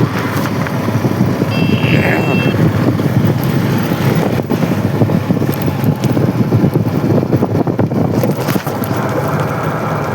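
Wind buffeting the microphone over a steady vehicle or machinery rumble, with a brief high tone about two seconds in.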